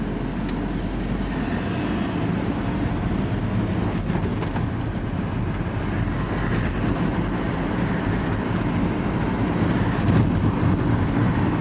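Steady engine and road noise heard inside a van's cab while driving.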